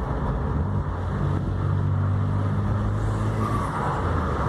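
Volkswagen Up TSI's turbocharged three-cylinder engine running steadily while the car is driven, a low, even engine tone with no audible turbo flutter.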